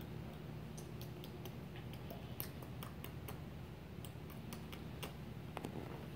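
Faint, scattered light clicks and ticks, a few a second and irregular, over a low steady hum.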